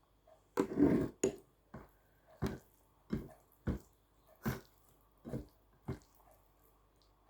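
Close-up eating sounds: a loud crunchy bite about half a second in, then a steady run of about eight crisp chews, roughly one every two-thirds of a second.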